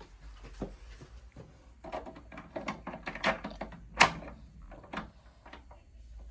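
Irregular clicks and knocks, the sharpest about four seconds in, over a low steady hum.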